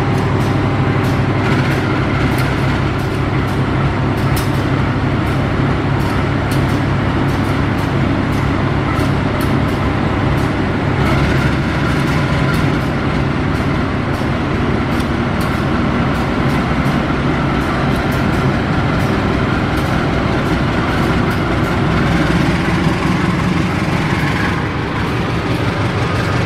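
Train rolling past close by: a steady low drone from the running gear and engine under an even rolling roar, with many sharp clicks of wheels on the rails.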